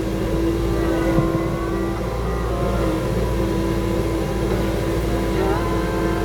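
KU45 mini excavator's diesel engine and hydraulics running steadily under load, powering a brush mower attachment.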